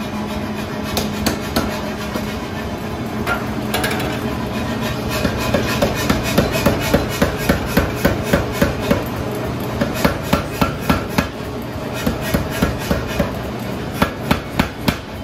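Nazel self-contained air power hammer striking a hot iron bar, forging its end into a penny scroll. Runs of rapid, evenly spaced blows, about three a second, come in bursts with short pauses, over a steady machine hum.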